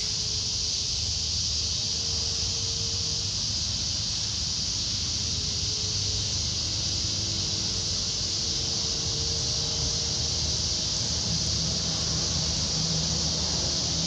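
Cicadas singing loudly in a steady, unbroken chorus, with a low rumble underneath.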